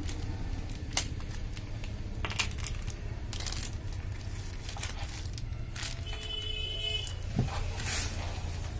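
Scattered sharp metallic clicks and clinks of hand tools and small parts being handled on a motorcycle engine, over a steady low hum; a brief high tone sounds about six seconds in.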